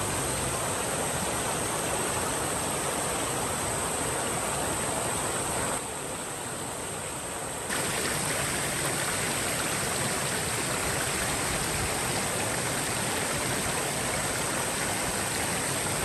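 Shallow river water rushing steadily over a low stone weir, a continuous even rush of water. It turns a little quieter for about two seconds in the middle, then returns.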